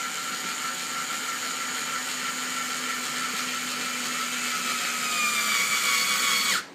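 Small cordless screwdriver motor whirring steadily as it drives a screw through a TPU rubber foot into a melamine base. Its pitch drops slightly near the end, then it stops abruptly just before the end.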